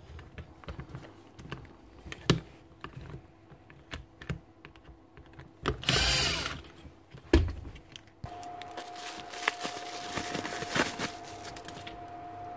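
Small clicks and taps of parts being handled, then about six seconds in a cordless drill-driver runs once for under a second on a screw in the drill's switch assembly, spinning up and winding down. From about eight seconds a steady faint hum sets in.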